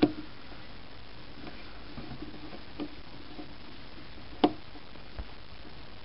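Faint scattered ticks of a small precision screwdriver turning tiny screws into a tablet's circuit board, with one sharper click about four and a half seconds in, over a steady low hiss.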